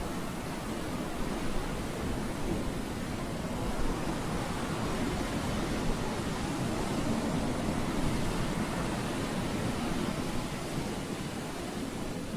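Steady rushing noise with no pitched tones, like wind or surf; no shofar blast sounds.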